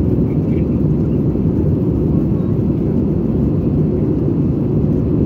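Steady low rumble of an Airbus A320 in flight, heard inside the passenger cabin: engine and airflow noise.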